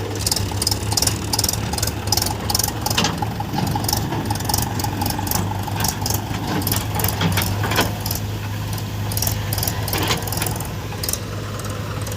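Heavy diesel engine running steadily with a low hum, overlaid by repeated sharp rattling clicks several times a second.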